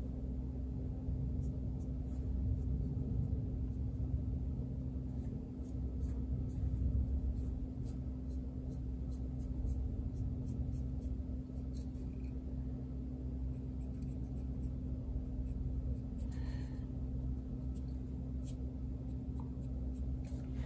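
Fine paintbrush stroking oil paint along a plastic model part, a faint soft scratching with scattered small ticks, over a steady low hum.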